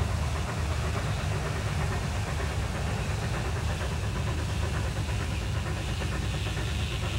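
A 1927 Baldwin 2-8-0 Consolidation steam locomotive working toward the listener from a distance: a steady low rumble with faint exhaust chuffs.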